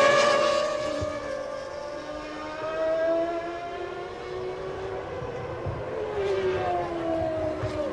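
1996 Formula One cars' engines passing at high revs, each pitch dropping as the car goes by. The loudest pass comes right at the start, with a steadier engine note rising a little in the middle and another car passing near the end.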